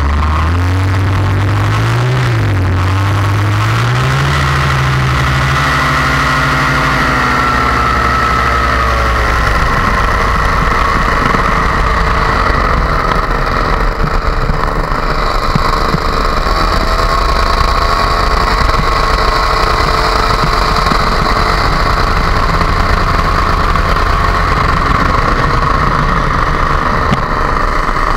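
Paramotor engine and propeller running in flight, with the rush of air. The engine's pitch rises and falls over the first several seconds as the throttle changes, then holds fairly steady.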